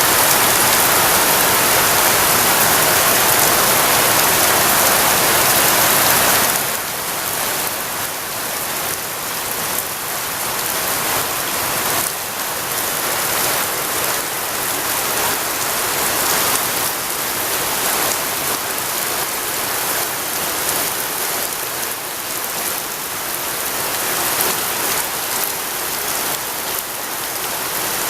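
Heavy rain falling in a steady hiss. It drops to a somewhat lower level about six and a half seconds in.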